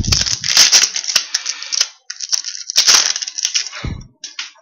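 Crinkling and tearing of a foil trading-card pack wrapper being handled and opened, in two long rustling stretches with sharp crackles, and a low thump at the start and again near the end.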